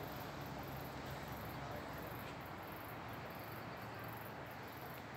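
Faint steady background noise with a low hum underneath.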